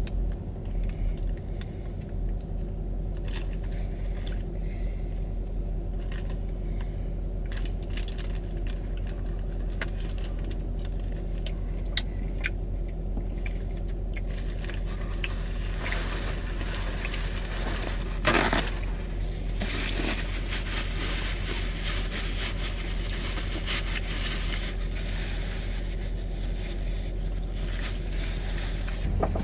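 Car engine idling steadily, with scattered small clicks and handling noises and one brief louder scrape about eighteen seconds in.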